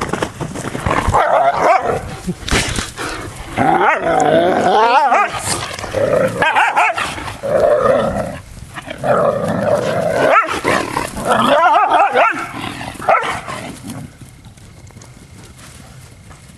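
Puppies play-fighting, growling and barking, with wavering growls and yips. It dies down near the end.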